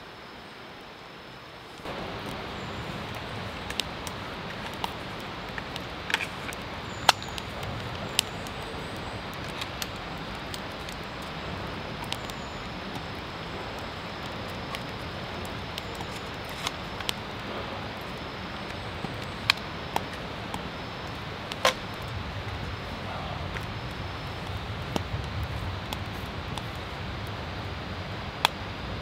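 Twigs burning in a Bushbuddy wood stove: scattered sharp crackles and pops over a steady hiss, which gets louder about two seconds in.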